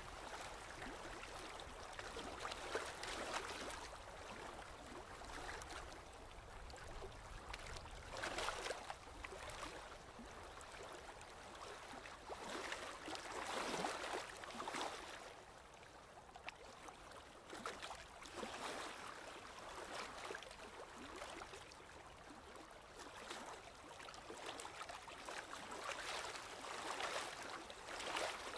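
Sea waves washing ashore, a swell of surf rising and falling every few seconds.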